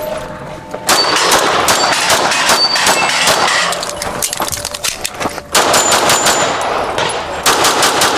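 Pistol fired in fast strings of shots at a practical shooting match, with steel targets ringing when hit. A short lull about halfway through, then another rapid string.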